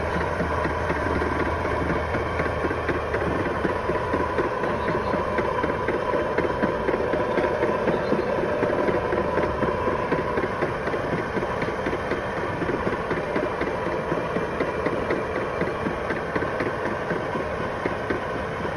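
Motor-driven kachchi ghani oil mill running, its rotating pestle churning and crushing nigella (kalonji) seed paste in the oily bowl: a steady mechanical hum with dense fine crackling.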